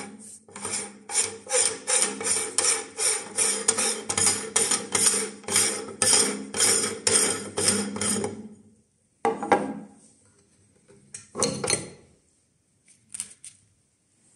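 Metal front ring of a hand-crank cast-iron meat grinder being unscrewed, its threads grating in a steady run of about three rasps a second. Then two metal clunks and a few small clicks as the ring and the perforated die plate come off.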